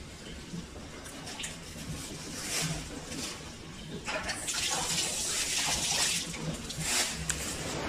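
Water running and splashing, getting louder and fuller from about four seconds in, with a few light knocks.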